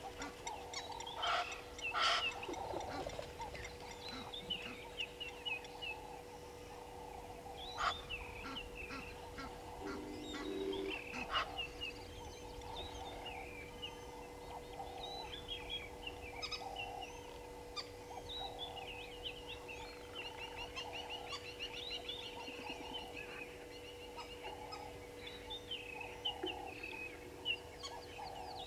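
Egyptian geese calling with short honks among a mix of high, rapid bird chirps, over a steady faint hum.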